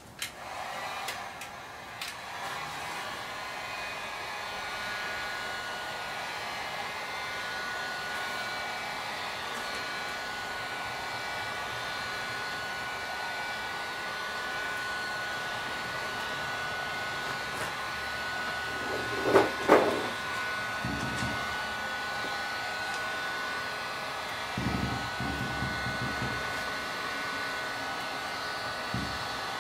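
Handheld electric heat gun switched on and blowing steadily: an even blower hiss with a thin steady whine, while it heats a dented plastic car bumper. About two-thirds of the way through come two brief, louder sounds.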